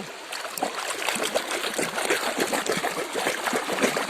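Water splashing and trickling as a mud-covered toy vehicle is washed by hand, with many quick, irregular splashes.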